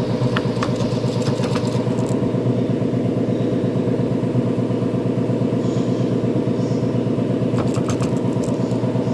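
Vehicle engine and gearbox running steadily with a fast, even rhythmic clatter: gearbox noise that the mechanic puts down to a seized gearbox bearing. A few light clicks come near the start and again near the end.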